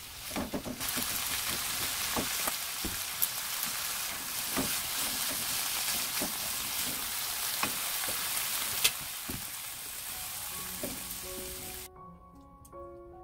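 Acorn jelly strips, onion and carrot sizzling in oil and sauce in a nonstick frying pan, stirred with a silicone spatula that clicks and scrapes against the pan now and then. Near the end the sizzling cuts off and light background music with single notes plays.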